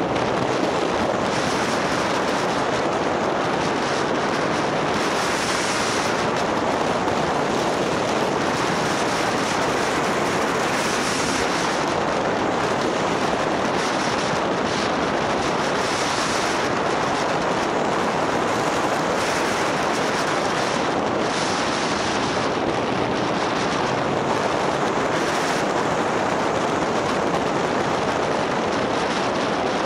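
Steady wind noise on the microphone of a camera riding on a moving motorbike.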